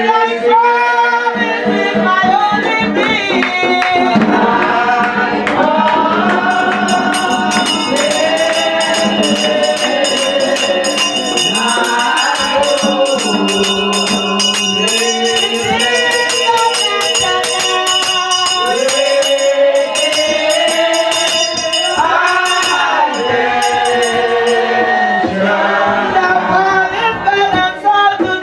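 Congregation singing a hymn together without instruments. Through the middle a brass handbell is rung in a quick, steady rhythm, jingling above the voices.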